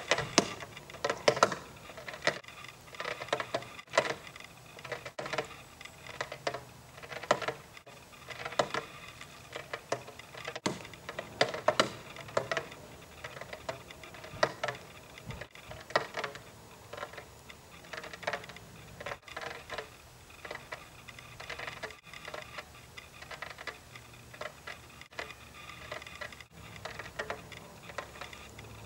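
Irregular clicking and ticking, broken every few seconds by momentary dropouts to silence.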